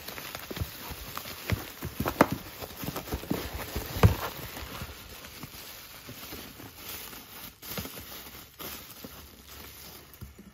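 Bubble wrap crinkling and crackling as it is handled and pulled out of a cardboard box, with many irregular sharp crackles. A louder knock comes about four seconds in, and the crackling thins out toward the end.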